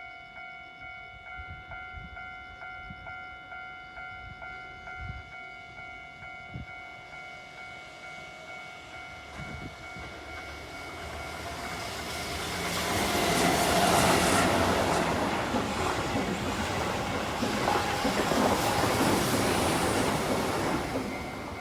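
Japanese level-crossing alarm bell ringing in a steady repeating clang, about two strikes a second. A Keihan Electric Railway train then passes over the crossing with wheel clatter, building from about halfway through, loudest in the second half and fading just before the end.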